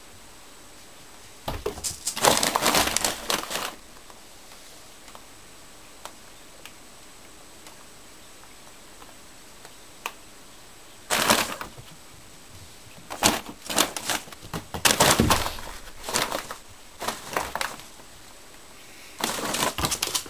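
Newspapers and a paper bag rustling and crinkling as a ragdoll kitten climbs in and moves around inside. It comes in four separate bouts: about two seconds in, just after eleven seconds, a longer run from about thirteen to seventeen seconds, and near the end.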